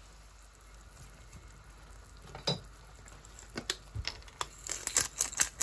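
Diced carrot, onion and bell pepper stewing in broth in a frying pan, with a faint steady sizzle. From about halfway, a scattering of light clicks and taps.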